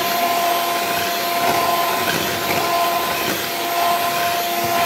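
Electric hand mixer running steadily at speed, its beaters whisking whipped egg-and-sugar cake batter as milk is added. A steady motor whine sits over the whirring of the beaters in the batter.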